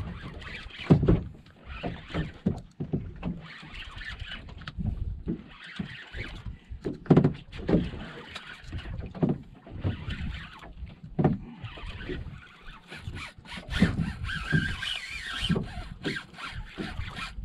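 Water slapping and knocking against a small boat's hull, with irregular thumps about every second or so over a steady rushing of sea and wind.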